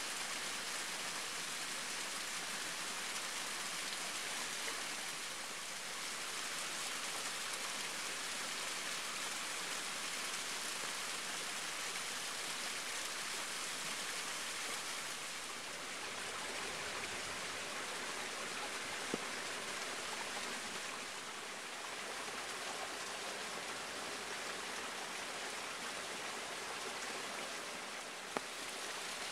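Waterfall pouring and splashing: a steady rushing hiss that shifts slightly in tone a few times, with a couple of faint clicks.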